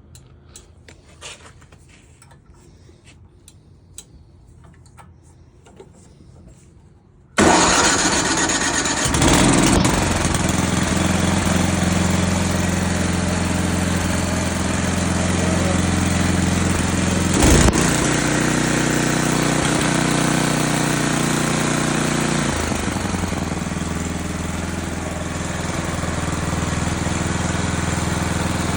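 A Noma Canadiana snow blower's 10 hp Tecumseh engine, electric-started on choke, catches suddenly about seven seconds in after faint clicks and then runs steadily. There is a sharp knock about 17 seconds in, and the engine note shifts a little about 22 seconds in.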